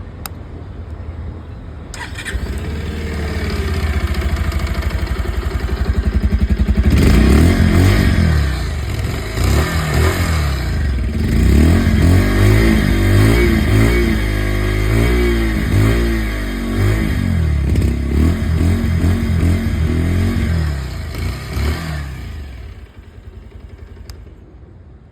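Bajaj Pulsar 150's single-cylinder engine starts about two seconds in and idles, then the throttle is blipped over and over, the exhaust note rising and falling for about fifteen seconds. The sound falls away near the end.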